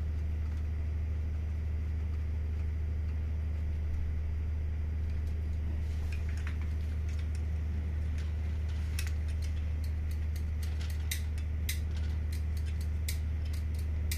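A steady low hum, with many small sharp clicks and taps starting about six seconds in and coming thick in the second half: the plastic and metal parts and wiring of a new closing coil being handled and fitted into a Merlin Gerin air circuit breaker.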